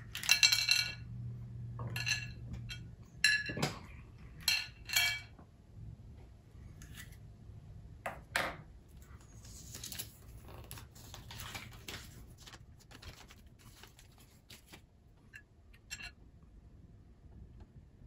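A series of light clinks and clicks from small hard objects being handled. They are loudest and closest together in the first five seconds, with another sharp one a little past halfway, then become softer and sparser.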